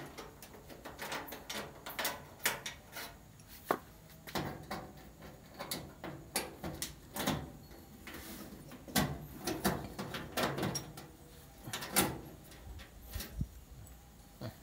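An 8 mm socket driver turning out the sheet-metal screws on the back panel of a Speed Queen clothes dryer: irregular metallic clicks and short scrapes.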